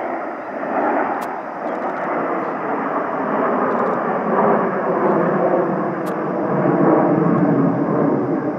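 Jet engine noise from a formation of display jets flying overhead: a steady rushing sound that swells a little about a second in, again around four and a half seconds, and near seven seconds.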